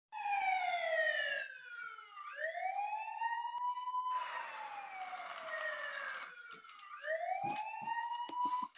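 Emergency-vehicle siren sound effect wailing, its pitch sweeping slowly down and up over a couple of seconds at a time. A few short clicks and knocks come near the end.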